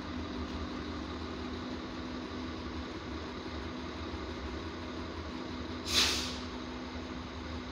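Diesel railcar idling with a steady low hum, and a short, sharp hiss of released air about six seconds in.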